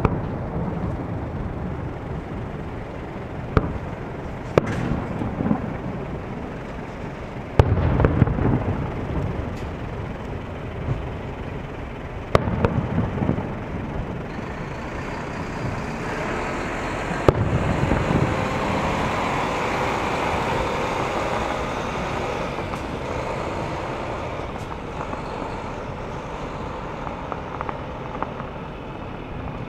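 Fireworks shells bursting over the bay: about half a dozen sharp bangs spread several seconds apart, the loudest and deepest about eight seconds in. Road traffic noise swells and fades in the middle.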